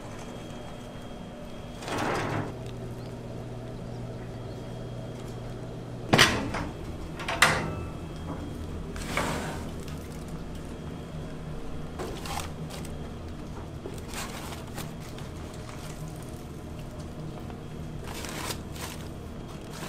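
Steel pans and foil-wrapped meat being handled on the metal grates of an offset smoker: a scattered series of clanks and knocks of metal on metal, the loudest two about six and seven seconds in, over a steady low hum.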